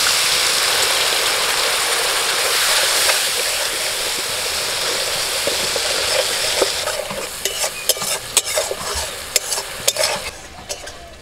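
Spice paste in an aluminium kadai sizzling hard as a little water is poured into the hot oil. The sizzle dies down about seven seconds in, while a metal spatula stirring and scraping the pan makes a run of sharp clicks.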